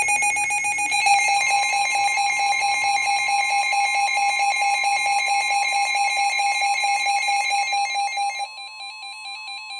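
NOAA Weather Radio emergency alert tones announcing a special marine warning: a loud steady electronic alarm tone, joined about a second and a half in by a second, higher steady tone. The first tone drops away about eight and a half seconds in, leaving the higher tone on its own.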